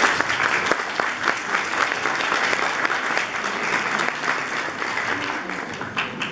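Audience applauding, a dense clapping that thins out and dies away near the end.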